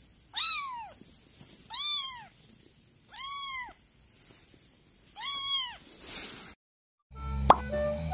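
Kitten meowing four times: short, high-pitched mews, each rising and then falling in pitch, about a second and a half apart. Near the end a low hum and a single sharp knock follow.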